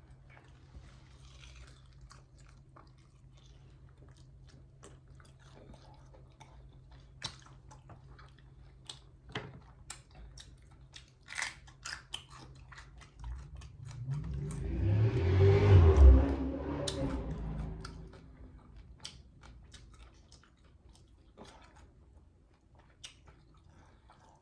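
Close-up chewing and biting of fried chicken wings, with scattered sharp crunches. About two-thirds of the way in, a louder rushing sound swells up, peaks and fades over a few seconds, drowning the chewing.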